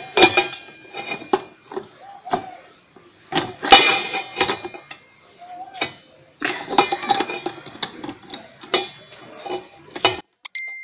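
Irregular metallic clinks, knocks and ringing clatter of tools working on an orange juicer's part held in a bench vise, as a left-hand-threaded piece is being turned loose. The clatter cuts off suddenly near the end, followed by a short high steady tone.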